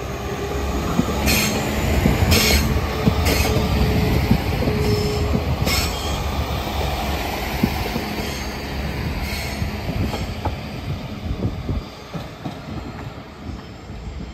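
Class 195 diesel multiple unit pulling away: a steady rumble of engines and wheels on rail, with four short, high wheel squeals in the first six seconds. The rumble eases off near the end.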